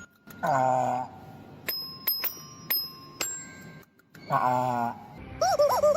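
Animals screaming on cue: two short, harsh calls a few seconds apart and a wavering call that bends up and down near the end. Between the calls come sharp ringing pings, like a small bell.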